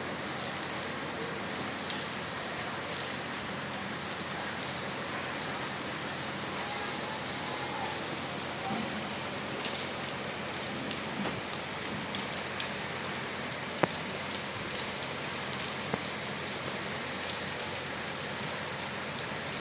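Steady rain falling and pattering on surfaces, with a few sharper drops landing now and then.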